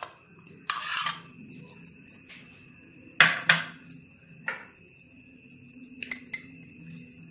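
Metal spoon scraping paste out of a small dish and clinking against ceramic bowls: a few separate sharp clinks and short scrapes.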